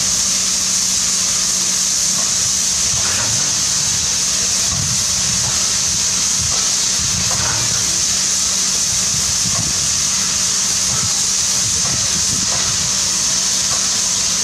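P36 steam locomotive standing with steam hissing steadily from it, an even high hiss with a steady low hum underneath.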